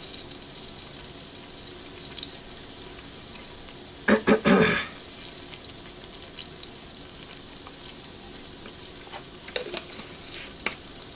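Butter, garlic and seasoning sizzling steadily in an Instant Pot's inner pot on sauté, with a few louder knocks about four seconds in.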